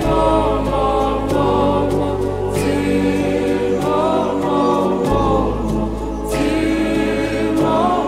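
Background music: a song with sung vocals over sustained bass notes that change every second or two.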